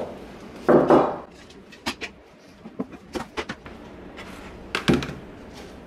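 Handling clatter on a workbench: scattered knocks and clicks as pieces of the wooden test rig and a plastic basin are moved and set down, with louder knocks about a second in and near the end.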